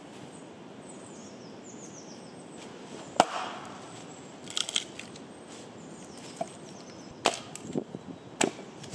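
Wood campfire crackling, with a few sharp pops: the loudest about three seconds in, a quick cluster of crackles a little later, and two more pops near the end.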